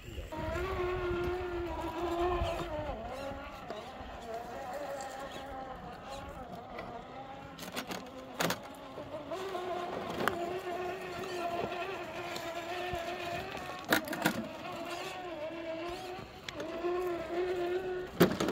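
Scale RC rock crawler's electric motor and gears whining as it climbs over rocks, the pitch wavering up and down with the throttle. A few sharp knocks as the truck bumps against the rock, the loudest around the middle and near the end.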